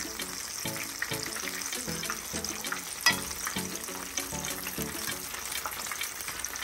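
Callaloo and saltfish fritters frying in a pan of hot oil on medium-high heat, sizzling and crackling steadily under background music with a steady beat. A single sharp click comes about three seconds in.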